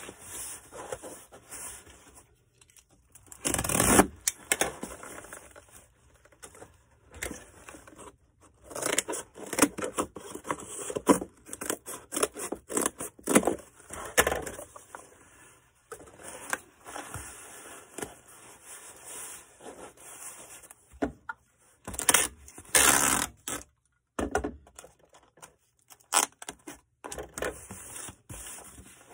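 Hands packing a shipping box: irregular scraping, rustling and light knocks of cardboard and packing material being handled, with louder bursts about 4 seconds in, in the middle and again about two-thirds through.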